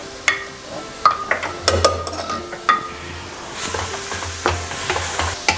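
A ladle knocking and scraping against the inside of a pressure cooker as boiled mutton is stirred, a few sharp clicks. Then grated onion sizzles as it fries in butter in a kadhai, a steady hiss for a couple of seconds near the end.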